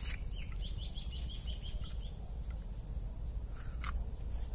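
A small bird gives a quick run of about eight short, high chirps lasting about a second and a half, over a steady low outdoor rumble. A brief scrape sounds shortly before the end.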